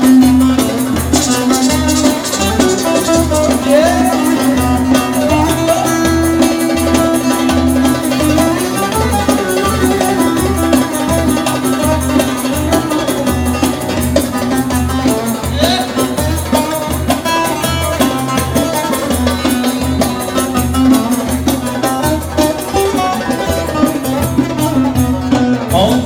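Live Turkish folk band playing an instrumental passage: amplified bağlama (long-necked saz) melody over a steady drum beat and a held low note.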